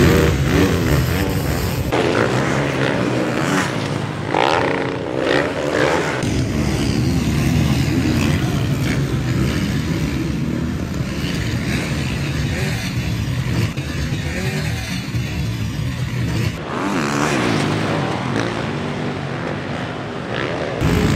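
Motocross bikes' engines revving and running on a dirt track. The sound changes abruptly a few times.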